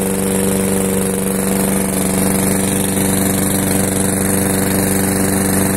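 Hyundai HDM 510P petrol lawn mower engine running at a steady speed, a loud even drone with no change in pitch.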